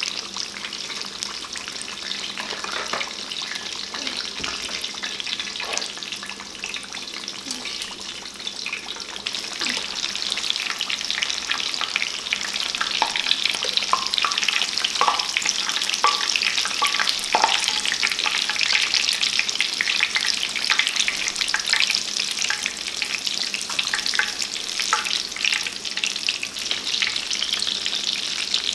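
Battered tempura deep-frying in a pot of hot oil: a steady crackling sizzle full of tiny pops, which grows louder about ten seconds in.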